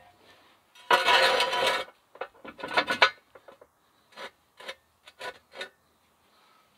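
Steel jack stand scraped and dragged over dirt ground, one long rough scrape about a second in, then several shorter scrapes, followed by a series of short knocks and clicks as it is set in place under the truck.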